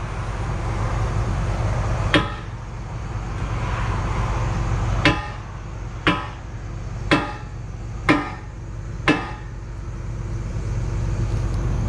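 Hammer blows on a steel pin being driven in to mount an excavator thumb: six sharp, ringing strikes, one about two seconds in and then five about a second apart. The excavator's diesel engine runs steadily underneath.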